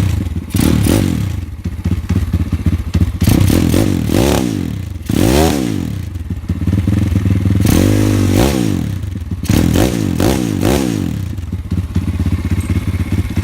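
Pit bike's single-cylinder four-stroke engine idling and being revved in several quick throttle blips, the pitch rising and falling each time, with one longer rev about two-thirds of the way through.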